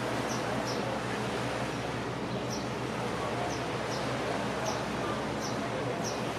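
Steady outdoor background noise with a low, even hum underneath, and short high chirps of small birds every half second or so.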